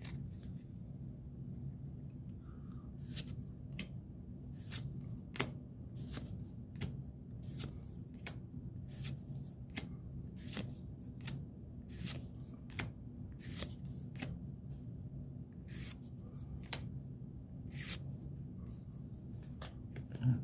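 Pokémon trading cards being flicked through one at a time, each slid off the stack with a short, crisp swish, about two a second. A steady low hum runs underneath.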